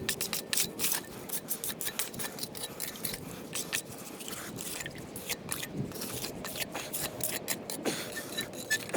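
Irregular gritty scraping with many short clicks, several a second, of hand tools working wet concrete.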